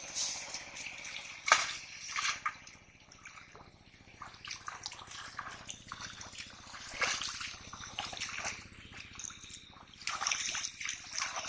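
Splashing and sloshing in shallow muddy water: footsteps splashing through it, then hands scooping and groping under the surface in irregular bursts. A sharp, loud splash comes about a second and a half in.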